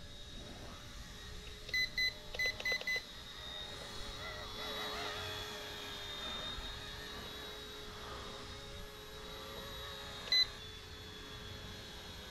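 Small electric RC helicopter hovering, its motor and rotor giving a steady high whine. A quick run of six short electronic beeps comes about two seconds in and a single beep near the end: the transmitter's trim buttons beeping as the trim is set against a drift.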